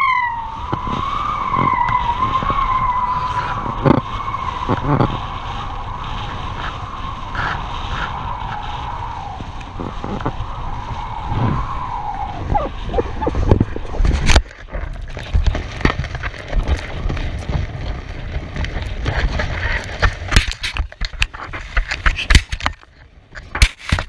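Strong wind buffeting the camera's microphone, under a sustained synthesizer tone from background music that fades out about twelve seconds in. After that the wind noise is joined by many sharp knocks and scrapes.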